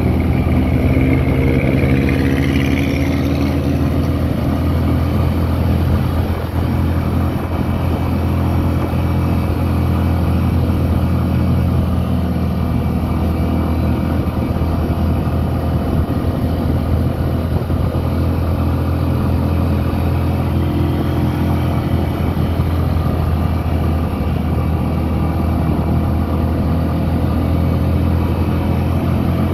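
A road vehicle's engine and road noise heard from on board as it drives, a steady low drone. A short higher sound rises and falls about two seconds in.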